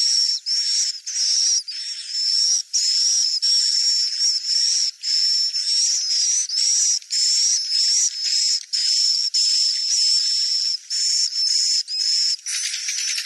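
Swiftlet lure call: a run of high, thin chirping calls about half a second each with short gaps, a steady high tone running through them, changing to a denser, buzzier call near the end.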